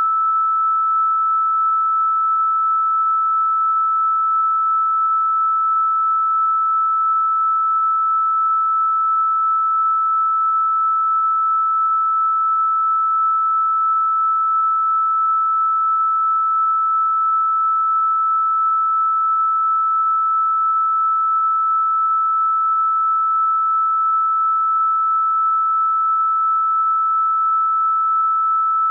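A single electronically generated pure sine tone, a healing-frequency meditation tone, held at one constant fairly high pitch and level without a break.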